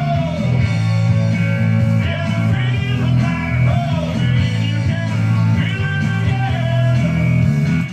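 Rock music with guitar and singing playing steadily, cutting off abruptly at the very end.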